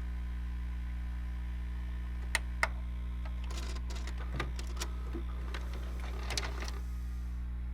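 VCR with a steady electrical hum. About two and a half seconds in come two sharp clicks, then a few seconds of clicking and rattling from its tape mechanism. A high hiss drops away near the end.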